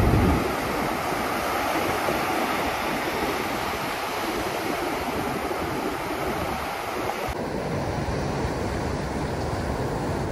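Ocean surf breaking and washing up on a sandy beach: a steady rushing noise of waves.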